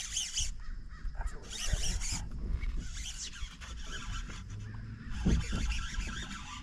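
Fishing reel cranked in bursts, a raspy hiss that comes and goes three times, over a low rumble that swells about five seconds in.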